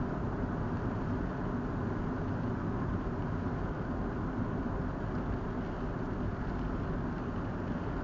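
Steady road noise inside a moving car's cabin: engine hum and tyre rumble, low and unchanging.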